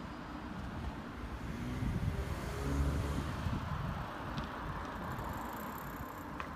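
Outdoor street ambience: a low rumble of a passing vehicle that swells about halfway through and then fades, with wind on the microphone.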